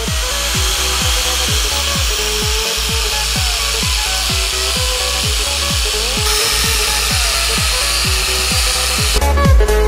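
Makita angle grinder spinning a twisted-knot wire cup brush against a rusty steel flat bar, scouring the rust off: a steady scraping hiss that stops shortly before the end. Background music with a steady beat plays over it.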